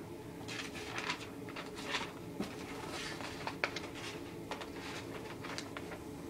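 Clear plastic bags of model kit parts crinkling and rustling as they are handled, in irregular crackles, over a faint steady hum.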